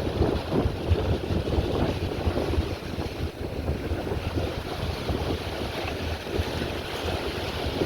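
Wind buffeting the microphone: a continuous, uneven rumble of gusts over a steady rush of noise.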